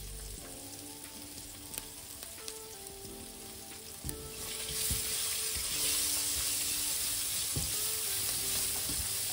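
Diced onions sizzling in oil in a stainless steel saucepan, stirred with a silicone spatula. About halfway through, the sizzle turns much louder and brighter as the stirring starts.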